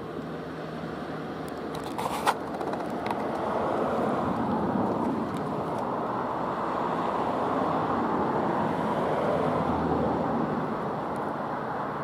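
Road traffic passing, a steady rushing that builds over the first few seconds, holds, and eases slightly near the end. One sharp click about two seconds in.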